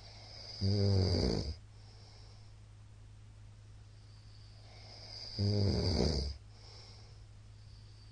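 A middle-aged man snoring loudly in his sleep: two snores about five seconds apart, each lasting about a second, over a steady low hum.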